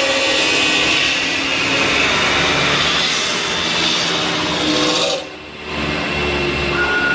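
CNC metal spinning machine forming a spinning sheet-metal blank: the forming roller rubbing on the metal gives a steady rasping friction noise over the spindle's running sound. The noise dips briefly a little past five seconds in, as if the roller lifts off between passes, then resumes.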